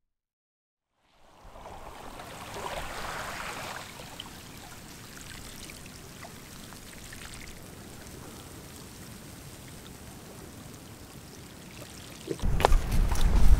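Shallow seawater trickling and gurgling among seaweed on a rocky shore, starting about a second in with small drips and clicks. Near the end, wind buffeting the microphone comes in and becomes the loudest sound.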